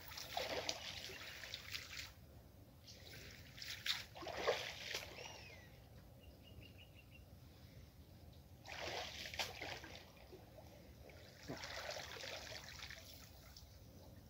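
Water splashing and trickling off a cast net as it is lifted and gathered out of a shallow muddy pond, in four bursts a few seconds apart.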